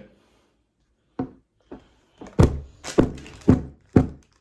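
Hammer smashing a gingerbread train on a tabletop: a few light knocks, then a run of heavy thunks about two a second.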